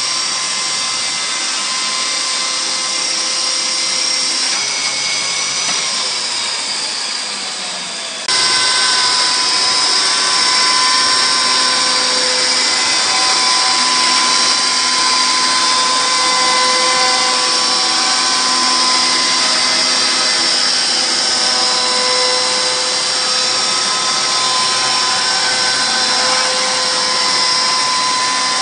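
A Snik 10 hp electric chainsaw mill sawing lengthwise through a pine block under its automatic feed: a steady, high, whining chain-and-motor sound. Some of its tones slide down in pitch a few seconds in, then the sound jumps abruptly louder about eight seconds in and holds steady.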